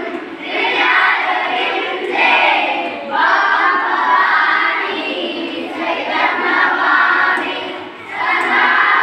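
A group of young children singing together loudly without accompaniment, in short phrases of a second or two with brief breaks between them.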